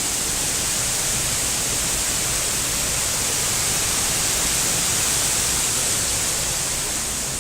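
Steady rushing of water from the waterfalls and cascades of a rocky gorge, an even hiss with no pauses.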